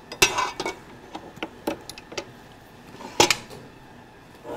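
Metal dough hook and stainless steel bowl of a stand mixer clinking and knocking as the hook is fitted, a scatter of short clinks with one louder clank about three seconds in.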